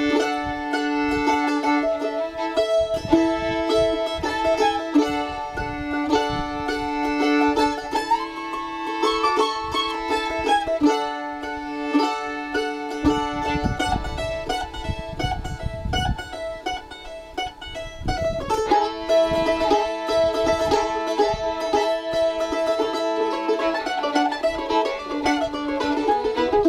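Mandolin and fiddle playing a tune together: the fiddle bows long held notes over the mandolin's picked notes, with a quieter, thinner passage about halfway through.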